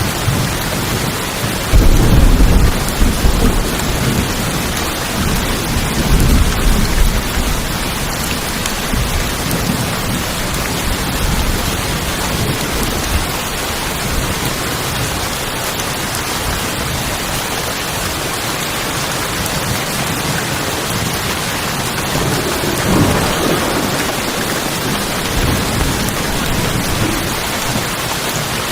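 Steady heavy rain on a tin house, with thunder rumbling deep and loud about two seconds in, again around six seconds, and more faintly near the end.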